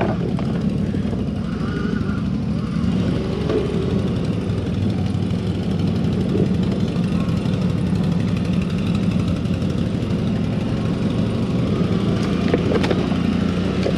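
CFMoto CForce 1000 ATV's V-twin engine running steadily at an even, unchanging pitch while the quad rides down a dirt trail.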